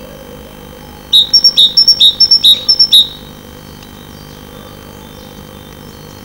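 A tit calling loudly at close range: about five quick two-note phrases, each a lower note followed by a higher one, starting about a second in and stopping after about two seconds, over a steady electrical hum.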